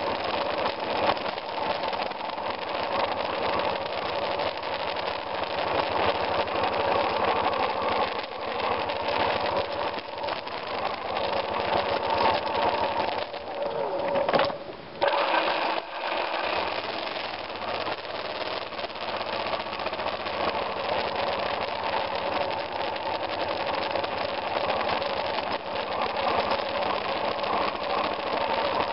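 Single-cylinder engine of a 2002 BMW F 650 GS Dakar motorcycle running steadily while riding an off-road trail, with a brief break in the sound about halfway through.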